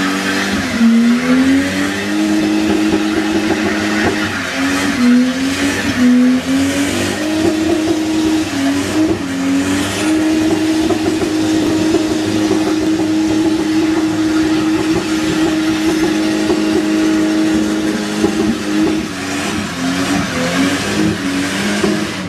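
Turbocharged BMW E30 320i doing a burnout, its engine held at high revs while the rear tyres spin and squeal. The revs dip and climb several times over the first ten seconds, then hold steady for several seconds before dipping again near the end.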